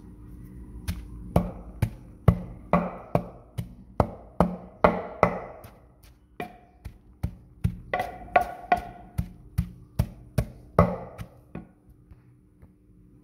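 Wooden pestle pounding a damp herb paste in a mortar: a steady run of wooden knocks about two a second, thinning briefly about halfway and stopping near the end.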